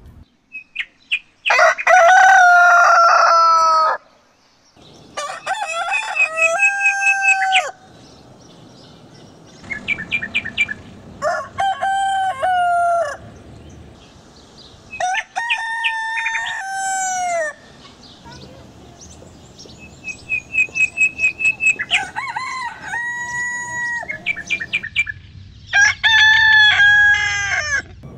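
Roosters crowing, about six crows one after another with short pauses between. Each crow is a broken run of notes ending in a longer held note. A few short clucks come near the start.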